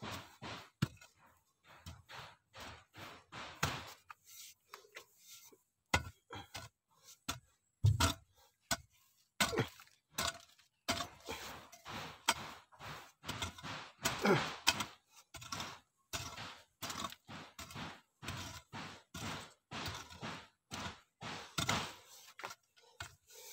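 Long-handled hoe chopping into dry, clumpy soil again and again, a quick run of dull strikes about two or three a second, with soil scraped and loosened between blows.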